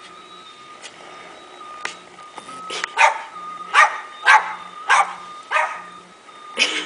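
Small dog barking: about six sharp barks at uneven half-second to one-second intervals, starting a few seconds in.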